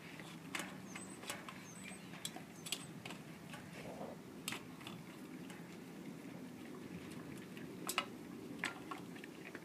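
A Doberman gnawing a frozen raw chicken quarter in a stainless steel bowl, making irregular sharp crunches and clicks of teeth on meat, bone and bowl. A faint low steady hum runs underneath.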